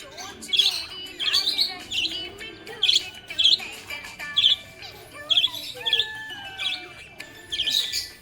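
Budgerigar chirping, a string of short sharp chirps about one or two a second, with a few sliding warbled notes near the middle.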